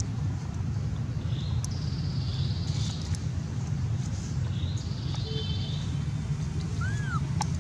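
Outdoor ambience: a steady low rumble with birds chirping now and then, and one short call that rises and falls about seven seconds in.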